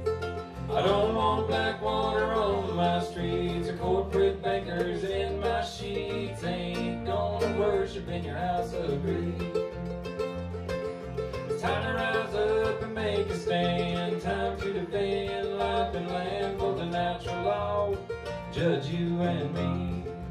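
A live acoustic band playing: a strummed acoustic guitar, mandolin and electric bass. A male voice sings in phrases, with instrumental stretches between them.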